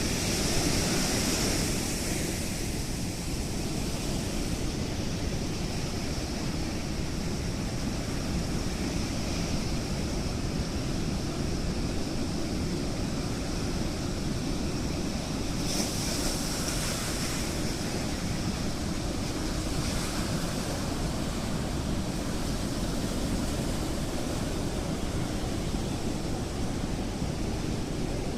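Steady rush of rough surf and wind after a typhoon, with brighter hissing surges at the start and a little past halfway.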